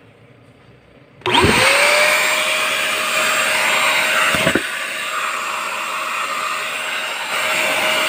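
Canister vacuum cleaner switched on about a second in: its motor spins up with a fast rising whine that settles into a steady high-pitched whine over a loud rushing of air. A few seconds later the pitch briefly drops and recovers.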